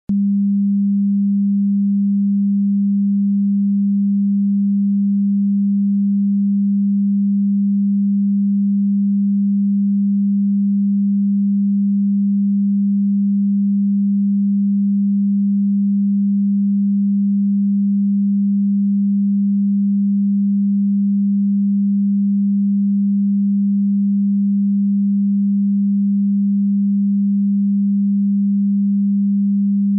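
A steady, pure, fairly low test tone played with colour bars, holding one pitch without change and cutting off suddenly at the end.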